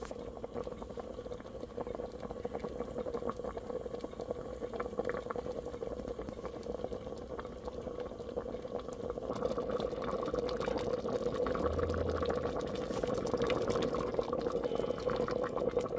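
Thickening meat-and-bean gravy in an Instant Pot on sauté, bubbling and popping as it comes to a boil, over a steady hum. The bubbling grows louder a little over halfway through.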